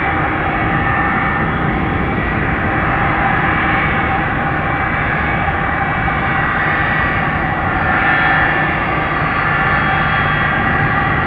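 Jet engines of a McDonnell Douglas MD-11F freighter running steadily and loudly, with an even roar and a steady whine in it.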